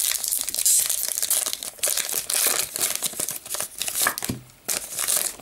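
Foil booster pack wrapper crinkling and crackling as it is handled and torn open, irregular and dying down near the end.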